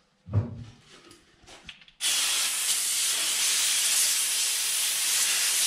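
Compressed-air blow gun blowing a steady hiss that starts suddenly about two seconds in, used to blow dirt out of the crevices of a bicycle freehub body.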